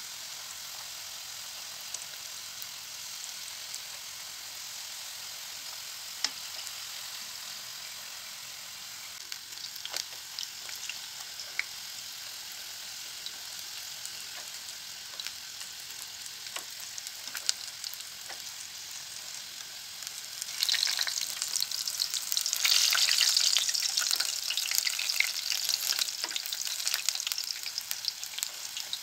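Sigara böreği (rolled yufka pastries) shallow-frying in hot oil in an aluminium pan, a steady sizzle with scattered light clicks of wooden tongs against the pan. About two-thirds of the way in, the sizzle turns into a much louder, denser crackling and spattering for several seconds, then settles back.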